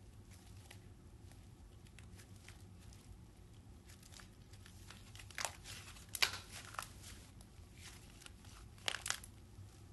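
Thick white slime stretched and pulled apart by hand, crackling softly, with several sharp pops and snaps in the second half.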